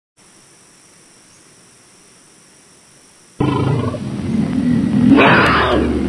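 Tiger growling and roaring. After about three seconds of faint hiss, a loud, low growl starts suddenly and swells into a louder, breathy roar near the end.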